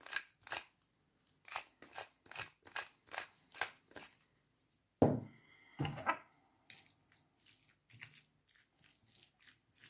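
Stainless steel pepper mill being twisted by hand, grinding pepper in a run of short crunching strokes, about three a second, that stop about four seconds in. A louder knock follows about five seconds in.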